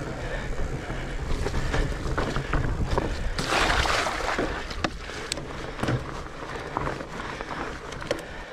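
Mountain bike rolling along a muddy dirt trail: a steady low rumble of tyres and wind buffeting the camera microphone, with scattered sharp clicks and rattles from the bike over the bumps. A louder rush of noise comes about three and a half seconds in.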